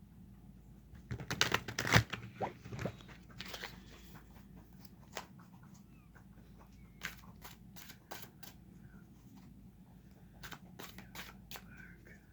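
Tarot cards being shuffled and handled: a dense run of card snaps and rustles about a second in, then scattered single card clicks.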